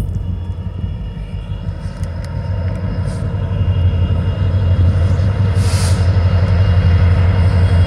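Diesel locomotive engine rumbling as a train approaches, growing steadily louder. A short hiss comes about two-thirds of the way through.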